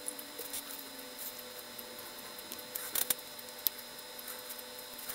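Faint small clicks and taps of metal tweezers on the parts of a disassembled model steam locomotive chassis, with a few sharper clicks around three seconds in, over a faint steady high tone.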